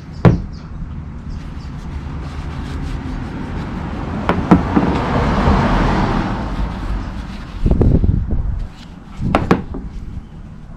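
Knocks and clinks of brake parts and tools being handled while brake caliper slide pins are cleaned, with a rushing hiss that swells and fades for a few seconds in the middle.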